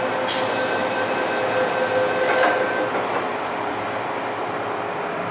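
MTR M-Train doors closing: a steady door-closing warning tone with a loud hiss over it, which cuts off as the doors shut about two and a half seconds in. The train's equipment hums steadily underneath.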